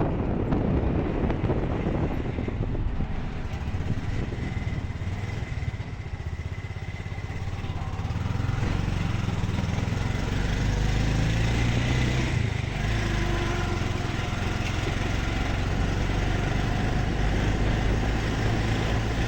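Engine and road noise of a moving vehicle. It dips about six seconds in, then settles into a steady low engine hum.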